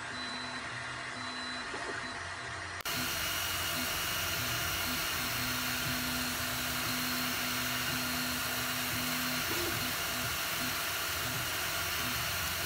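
FDM 3D printer printing: steady fan noise, with the stepper motors' whining tone starting and stopping as the print head moves through its infill lines. The sound steps up louder about three seconds in and then stays steady.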